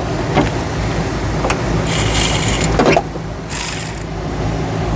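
Power ratchet run in two short bursts, about two seconds and three and a half seconds in, set in the tightening direction instead of loosening ("takeoff") mode, so the fitting doesn't come off. There are a few light tool clicks early on, over a steady low hum.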